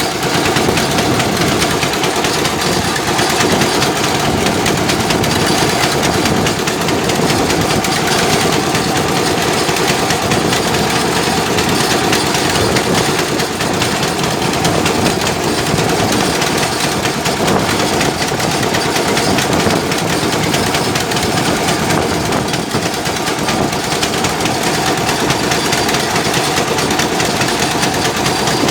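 Heavy machinery engine running steadily and loudly, from the equipment unloading coal from a barge.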